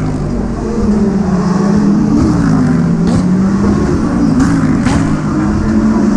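GT3 race car engine note rising and falling in pitch as the car accelerates and lifts.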